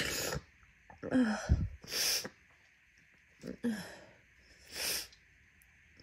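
Person sneezing repeatedly in a fit of deliberately induced sneezes: a run of short breathy bursts, sneezes and sharp sniffs or gasps, the loudest about a second in.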